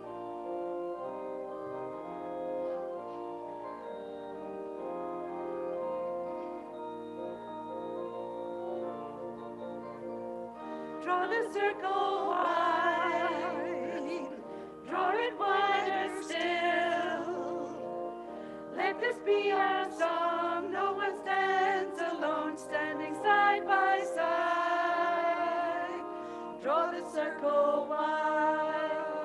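A hymn played on keyboard with sustained chords, then sung over the accompaniment from about eleven seconds in.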